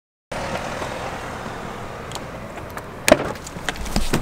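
Steady outdoor background noise, then a quick run of sharp knocks and clicks from about three seconds in.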